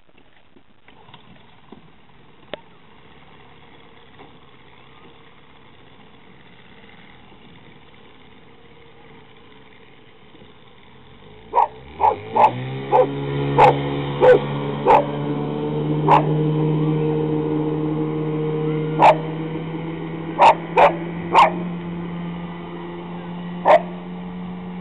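A 1976 Johnson 9.9 hp two-stroke outboard opening up to full throttle: its pitch climbs sharply about eleven seconds in, then holds steady and creeps slowly higher as the jonboat runs flat out. Over it, a dog barks about a dozen times in sharp single barks.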